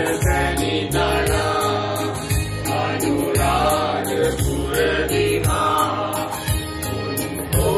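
Mixed choir of men and women singing a devotional song together over instrumental accompaniment with a steady beat.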